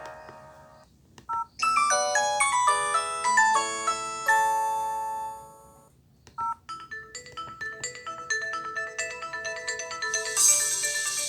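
Nokia ringtones, mostly MIDI, played through an LG B470's phone speaker, one after another. One tune fades out, a short beep sounds, and a quick melody of bright notes plays and fades out. After another short beep, a new tune of quickly repeating notes starts and grows brighter near the end.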